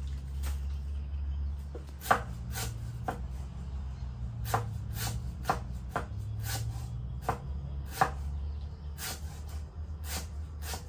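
Sharp chopping or cutting strokes, starting about two seconds in and coming roughly two a second in short runs, over a low steady hum.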